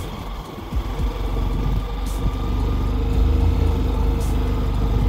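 Monkey bike's motor running steadily under load as it climbs a steep dirt trail. Strong wind buffets the microphone with a low rumble.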